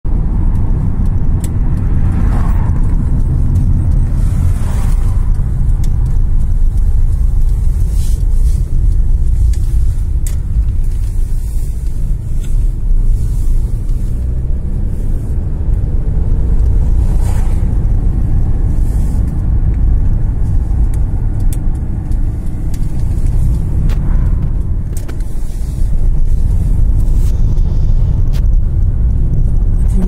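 Steady low rumble of engine and road noise inside a moving car, with a few louder swells as other vehicles pass and occasional brief clicks.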